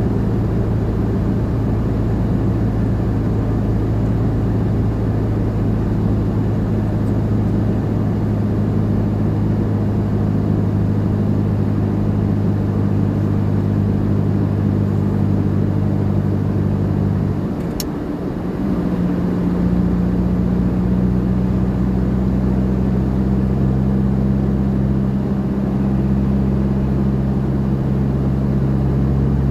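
A 4x4's engine pulling uphill under load, a steady drone with road noise. About seventeen seconds in, the note breaks off with a click and comes back at a different pitch about a second later.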